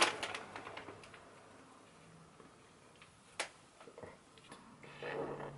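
Faint handling noises and a few sparse, short clicks as marshmallows are pushed into a stuffed mouth, with a low muffled hum through the full mouth near the end.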